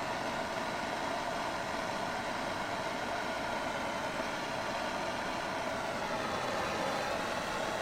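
Propane torch flame burning with a steady hiss while it heats a copper pipe fitting for sweat soldering.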